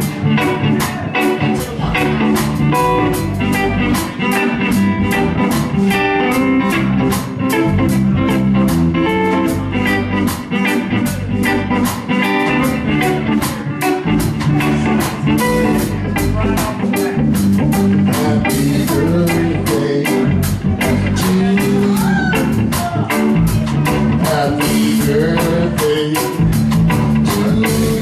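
A live band playing: electric guitar, bass guitar and drum kit, with a steady beat.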